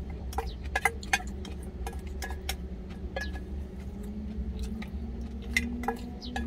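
Wooden chopsticks clinking and scraping against a stainless steel bowl as food is scooped up, a scatter of short sharp clicks over a low steady hum.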